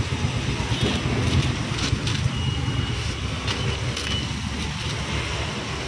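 Steady low rumble of roadside traffic, with scattered light clicks and taps over it.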